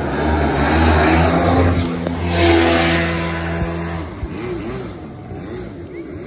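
Kawasaki 650 two-stroke engine of a homemade aluminium mini jet boat running hard at speed, with water rushing. The engine note swells about two and a half seconds in, then fades after about four seconds as the boat pulls away.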